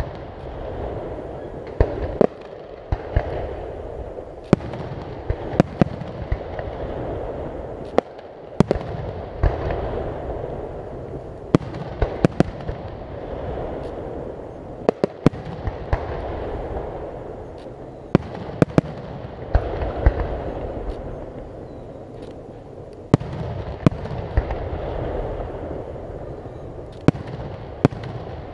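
Aerial firework shells bursting in a display: a steady run of sharp bangs, roughly one a second and sometimes in quick pairs, over a continuous low din between them.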